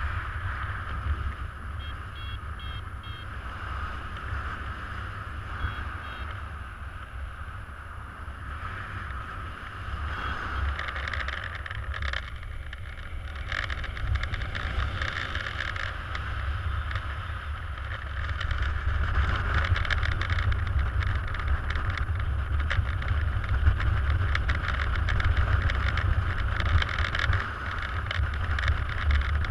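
Airflow buffeting the microphone of a camera worn by a paraglider pilot in flight: a steady rumbling rush that grows louder about two-thirds of the way through. A few faint short beeps come about two and six seconds in.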